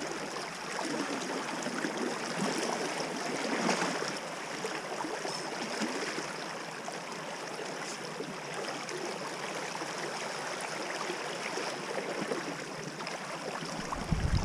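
Steady rush of a shallow river current running over a gravel and weed bed.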